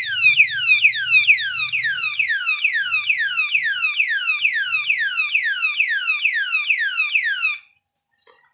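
Anti-theft alarm lock's siren going off loudly: a rapid train of identical falling electronic chirps, about two and a half a second, that cuts off suddenly near the end.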